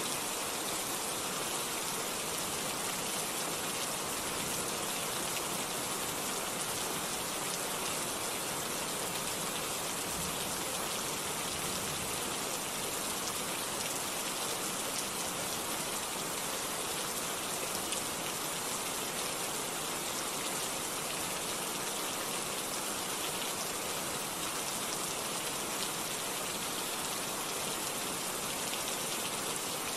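Steady rainfall: an even hiss of rain, mostly high with little low rumble, flecked with the faint ticks of single drops striking a surface.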